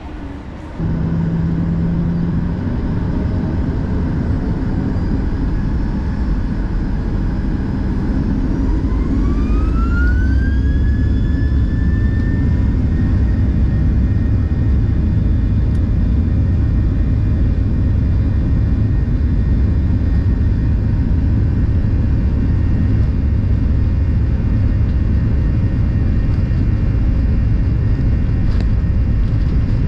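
Jet airliner engines heard from inside the cabin, a loud low rumble with a whine that rises steadily in pitch for several seconds and then holds: the engines spooling up to takeoff thrust.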